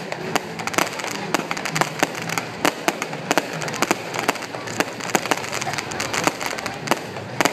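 Aerial fireworks bursting and crackling: sharp bangs at irregular intervals, several a second.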